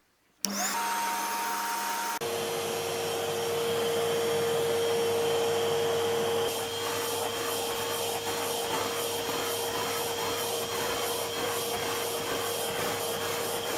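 Numatic NVR200-1 cylinder vacuum cleaner switched on and running on a test after a new dust bag is fitted. It starts about half a second in, picks up about two seconds in, then runs steadily with a high whine and dips slightly past the middle. It is running normally.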